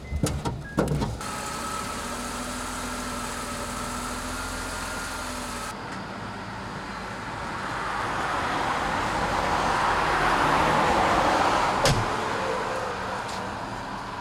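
A car, a few knocks in the first second, then its engine running steadily. About six seconds in a rush of vehicle noise builds, peaks around ten seconds and fades, with a sharp click near the end.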